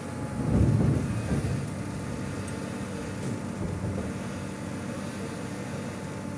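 Hydraulic excavator's diesel engine running steadily, with a louder low surge about half a second in that fades after a second or so.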